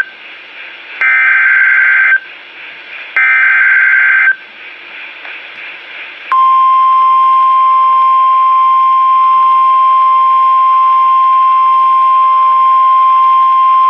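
Emergency Alert System SAME header: bursts of shrill, buzzy digital data tones, each about a second long with a second's gap, the last ending about four seconds in. About six seconds in, a steady single-pitched 1050 Hz NOAA Weather Radio warning alarm tone begins and holds, announcing an emergency weather message.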